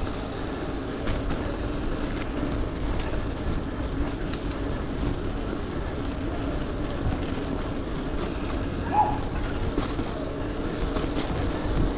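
Steady wind rush on an action camera's microphone with tyre and road rumble from a bicycle ridden at speed. A few faint clicks, and a short high chirp about nine seconds in.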